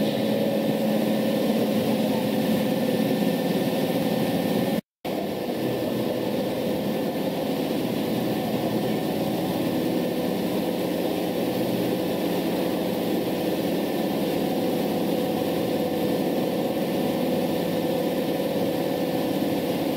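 Steady mechanical hum of the running Rosch KPP plexiglass demonstration unit, with a constant drone and no change in pitch. The sound cuts out completely for a fraction of a second about five seconds in, then resumes the same.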